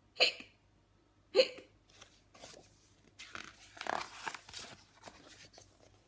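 A woman's voice giving two short, sharp imitated hiccups, 'hic', about a quarter second and a second and a half in; then the pages of a picture book being turned, with paper rustling for a few seconds.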